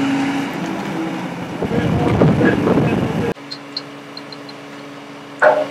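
Heavy diesel engine of a truck-mounted crane running with a steady hum, growing louder and rougher about two seconds in, then cutting off abruptly to a quieter steady hum.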